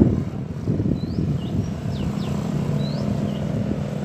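A steady low engine hum, like traffic or an idling motorbike, louder at the very start. Over it a bird repeats short, high, rising chirps about once a second.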